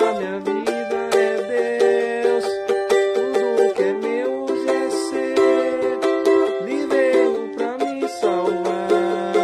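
Cavaquinho strummed in a steady rhythm, playing a passage of chords with no singing.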